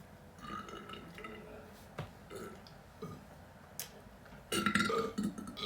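A person burping: a few short soft burps and clicks over the first few seconds, then the loudest and longest burp about four and a half seconds in, lasting under a second.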